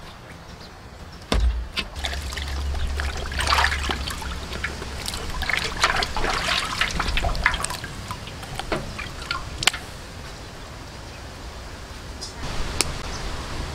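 Water trickling, dripping and splashing as raw pieces of cow's head meat are washed by hand in a pot of water and lifted out. There is a sharp knock about a second in and a few clicks later on.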